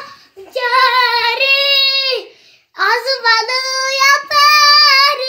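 A young boy singing unaccompanied in a high voice: two long drawn-out phrases with held notes and a short breath between them.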